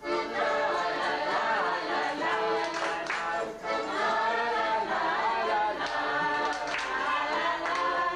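A group of people singing together without instruments, a Passover seder song, with short breaks between phrases.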